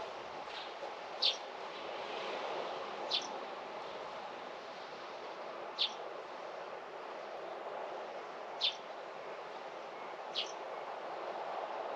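A bird giving five short, sharp high calls, spaced two to three seconds apart, over a steady background hum.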